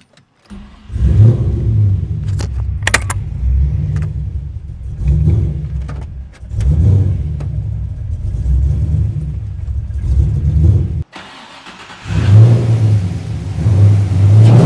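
LS3 V8 engine in a Nissan 350Z, on an untuned Haltech base map, firing up about half a second in and running with an uneven idle that swells and sags every couple of seconds. It breaks off for about a second just after eleven seconds, then is heard running again with the revs rising near the end.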